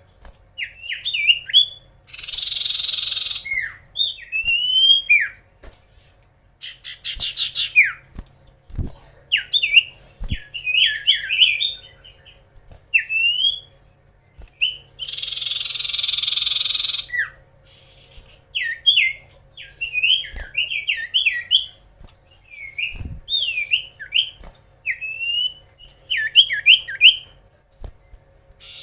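Common iora (cipoh) singing non-stop: quick sharp whistled chirps and slurred notes, broken twice, about two seconds in and mid-way, by a long harsh rasping call.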